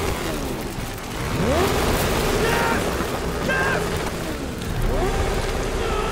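Yamaha YZ450F motocross bikes' single-cylinder four-stroke engines revving hard over a steady rumble, the pitch climbing in two rising sweeps, about a second and a half in and again near the end.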